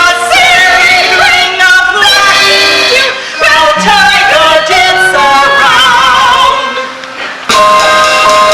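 Stage musical number: voices singing with vibrato over the show's backing music. A short lull about seven seconds in gives way to a long held sung note.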